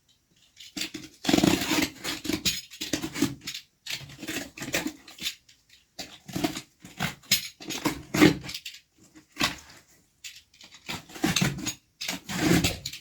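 Cardboard box being cut open and handled by hand: irregular scraping, rustling and knocks of cardboard, loudest about a second in, near the middle and near the end.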